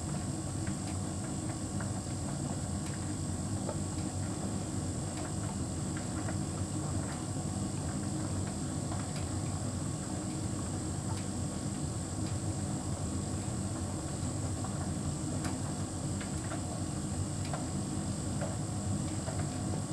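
Hotpoint heat pump tumble dryer running steadily mid-cycle: a constant hum with a thin high whine, and faint ticks now and then.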